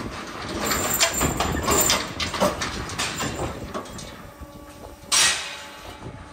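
Metal clattering and knocking from a steel WOPA hoof-trimming chute as a cow moves through and out of it. A single short, loud noise comes about five seconds in.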